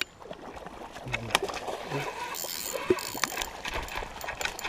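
Water splashing in short bursts as a small hooked sturgeon thrashes at the surface near the bank, with scattered sharp clicks.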